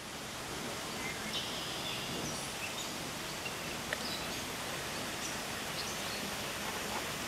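Steady outdoor pond-side background noise, an even hiss, with a few faint, short bird chirps scattered through it.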